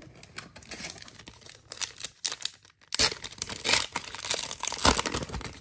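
Foil MetaZoo booster pack crinkling in the hands as it is torn open; the crackling gets louder and busier about three seconds in.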